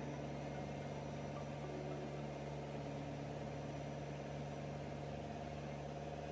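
Combine harvester's engine running steadily with an even hum.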